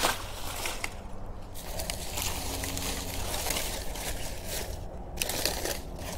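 Dry, papery banana leaves and a chopped banana stalk rustling and crackling as they are handled and dropped to the ground, with a few short, sharp crunches.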